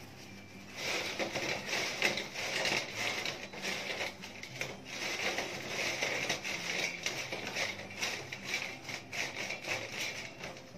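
Paper towels rustling and crumpling as they are pressed and rubbed over fried french fries on a steel tray to blot off the oil: an irregular crackly rustle that starts about a second in.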